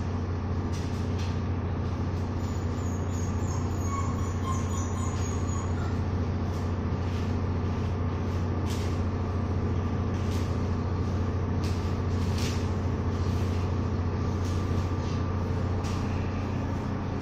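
A steady, unchanging low machine hum, with a few faint clicks and taps scattered through it.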